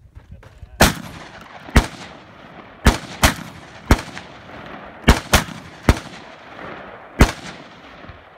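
Rifle fired nine times in quick, uneven succession, some shots close together in pairs. Each shot is a sharp crack followed by a trailing echo.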